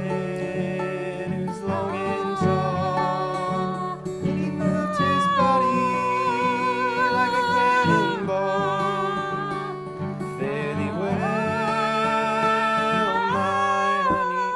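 A man singing a slow folk song in long, wavering held notes while strumming and picking an acoustic guitar.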